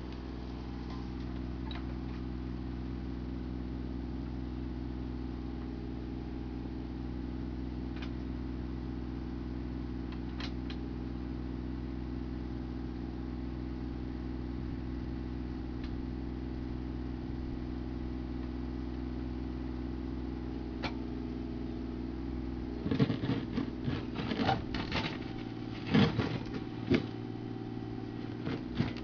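E32 mini excavator's diesel engine running steadily. Near the end, the bucket digs into the trench, with a string of loud knocks and scrapes from dirt and stones.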